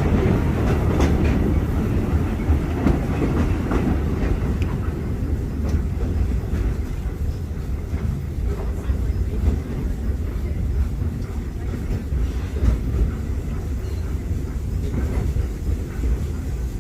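Walt Disney World Railroad train rolling along the track, heard from a passenger car: a steady low rumble with light clickety-clack of the wheels.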